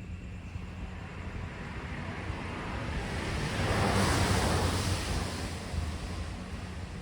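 A vehicle passing on a wet road: the hiss of its tyres through water swells to a peak about four seconds in, then fades, over steady heavy rain and a low rumble of wind.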